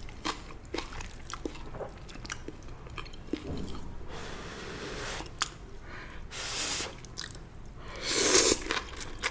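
Close-miked eating of stir-fried water spinach (morning glory): crunching and wet chewing with many short, sharp clicks, and a louder noisy burst about eight seconds in.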